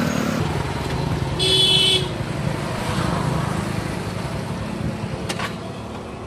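Motorcycle riding on a road, with a steady low engine and road rumble. A vehicle horn beeps once, for about half a second, about a second and a half in.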